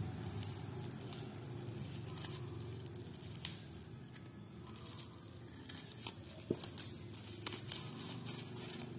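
Plastic and paper packaging crinkling and rustling as it is handled and torn open to unwrap die-cast toy cars, with a few sharp clicks, most of them a little past the middle.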